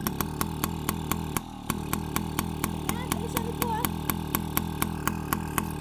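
A Yamaha PW50's small two-stroke single-cylinder engine idling steadily just after a kick start, with an even, rapid pulse. There is a brief dip in level about one and a half seconds in.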